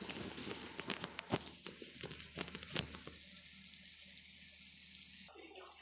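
Fish frying in hot coconut oil in a pan: a steady sizzle with scattered crackling pops in the first three seconds, cutting off suddenly near the end.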